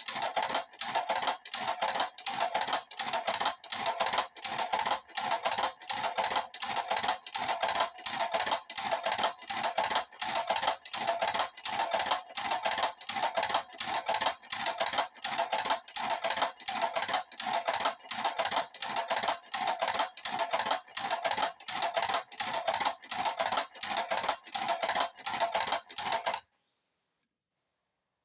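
Power-window motor turning a stator-winding jig, running with a steady, rapid, regular clicking clatter that stops suddenly about 26 seconds in.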